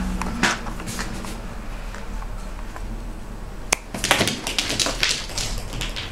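A bottle cap batted around by a cat, clicking and tapping as it skitters. A few light taps come first, then one sharp click a little past halfway, followed by a quick flurry of taps.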